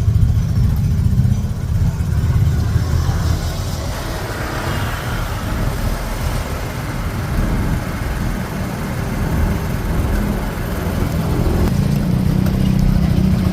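Motorcycle engine of a Philippine tricycle (motorbike with sidecar) running steadily while riding, heard from inside the sidecar with road and wind noise; the low engine drone grows stronger near the end.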